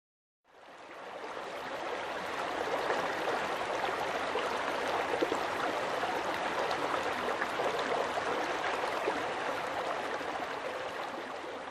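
Shallow river water flowing over stones, a steady rushing that fades in about half a second in.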